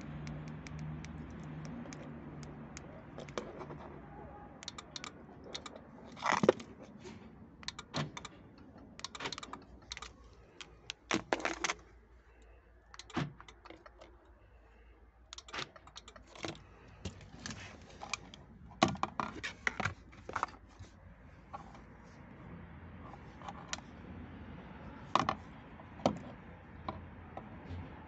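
A set of car keys with a flip-key remote being handled, giving irregular clusters of sharp clicks and small rattles, like keys jangling and buttons being pressed.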